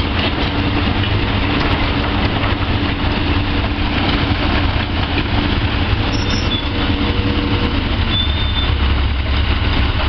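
Hydraulic excavator's diesel engine running steadily: a constant low rumble under an even hiss.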